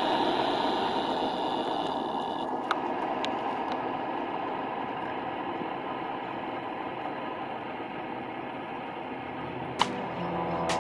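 HG P408 1/10 RC Humvee's 550 brushed motor and gear drive running as the truck crawls over leaf litter: a steady whirr that slowly fades as it moves away, with a few sharp clicks.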